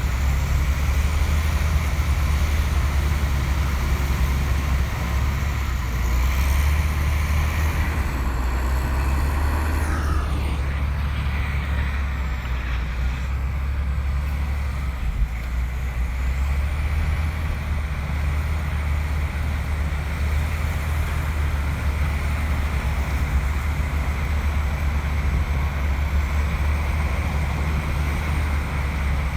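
Komatsu bulldozer's diesel engine running steadily under work, a deep continuous rumble, with a brief falling whine about ten seconds in.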